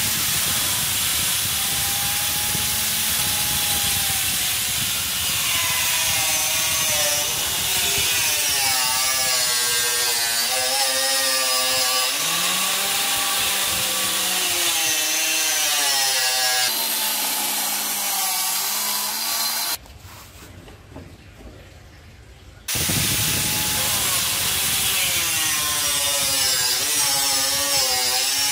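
Angle grinder with a diamond cutting disc running and slicing lengthwise through PVC pipe, the motor's pitch wavering as it takes and sheds load. The sound drops away for about three seconds past the middle, then resumes.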